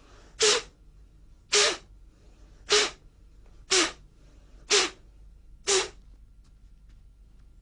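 A man's sharp, forceful exhalations, six about one a second, each a hissing blast of breath ending in a short grunt. This is the forceful combat breathing of Emei qigong, done with each repetition of the arm movement.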